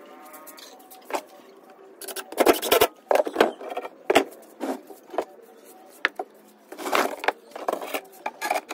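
Irregular knocks and clatter of metal bar clamps and hand tools being handled against plywood shelf panels, with a cluster of loud rattling knocks about two to three seconds in and another about seven seconds in.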